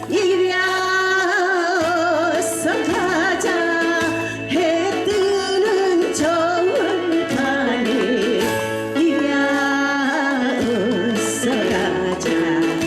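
A Korean folk-style song sung with heavy vibrato over a backing track with sustained accompaniment and a repeating bass.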